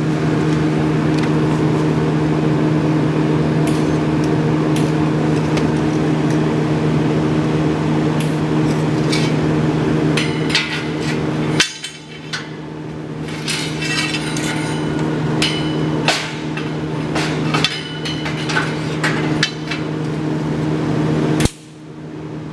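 Steel pieces clinking and knocking against a Vulcan anvil as they are handled and set in place, over a steady machine hum. The hum drops out briefly halfway through and cuts off near the end.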